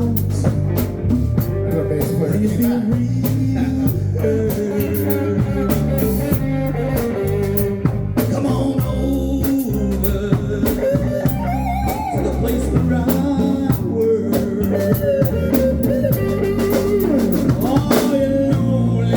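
Blues music with electric guitar and a drum kit playing a steady beat, the guitar's notes bending.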